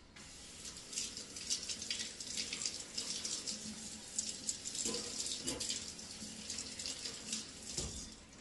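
Kitchen tap running into a sink, water splashing as a raw whole chicken is rinsed under it. The water starts abruptly and stops near the end.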